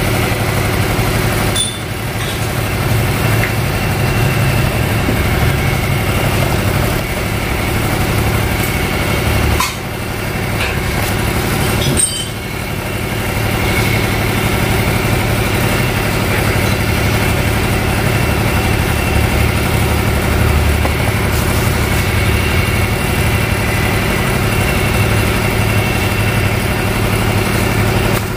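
Engine idling steadily, a continuous even hum with short dips about 2, 10 and 12 seconds in.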